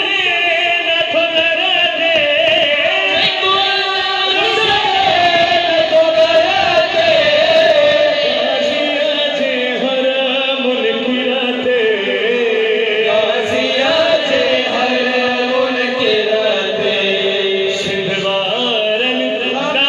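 Men chanting a devotional praise recitation into microphones over a PA, the lead voice holding long, wavering sung notes with the others joining in.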